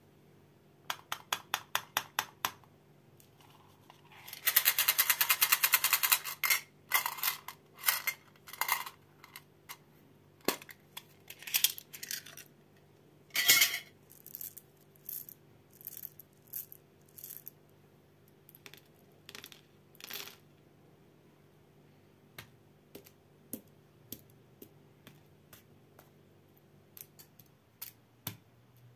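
Small hard sugar-free mints from a Scandic tin clicking and rattling. A quick run of light taps comes first, then a dense rattle of mints pouring into a hand for about two seconds. After that come scattered clicks as the mints are handled and set down one by one on a hard surface, growing sparser toward the end.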